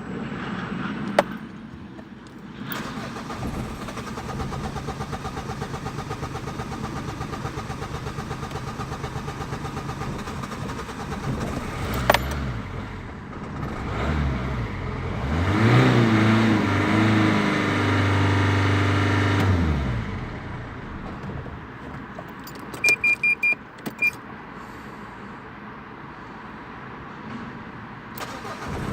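Renault Clio 1.5 dCi diesel hard starting: the starter cranks it with an even pulsing for about nine seconds without it catching. A few seconds later the engine fires, revs up and runs for about five seconds with the throttle being pumped, then stops. A few short high beeps follow near the end.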